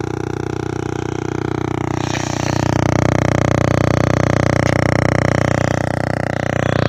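Loudspeaker driven by a homemade infrasonic sound generator set to 15, giving a steady low buzz full of overtones. It grows louder about two seconds in.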